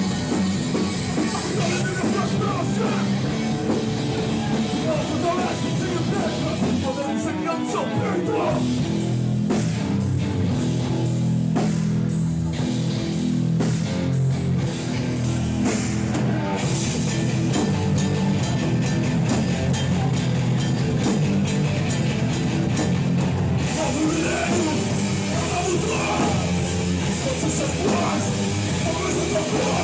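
Hardcore band playing live: distorted guitars, bass and drums at a steady high level, with shouted vocals at times.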